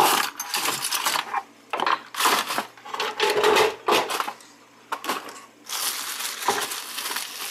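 Clear plastic bag crinkling and rustling in irregular bursts as it is carried and handled.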